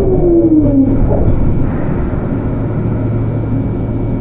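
Inverter whine of a Sotetsu 8000 series train's Hitachi GTO-VVVF traction control, falling steadily in pitch as the train slows under braking. The whine dies out about a second in, leaving the steady low rumble of the moving car.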